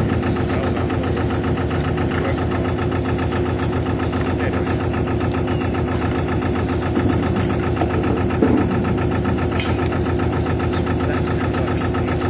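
Canal narrowboat's diesel engine running steadily under way, with a fast, even chugging beat.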